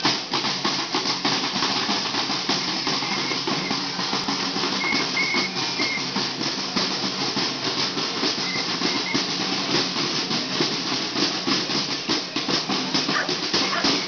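Percussion playing a fast, steady rhythm: drum strikes and shakers over the dense noise of a marching crowd.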